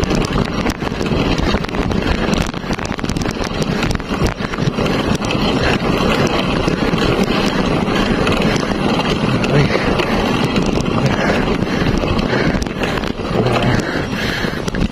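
Steady rush of wind buffeting the microphone on a moving bicycle, with many short crackles and the low rumble of tyres rolling on a concrete road.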